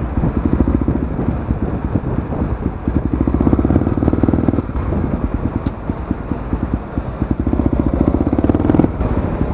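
Honda Tornado 250 single-cylinder four-stroke motorcycle engine running through its aftermarket exhaust while riding in slow traffic. It putts steadily and swells louder three times as the throttle opens, easing off between.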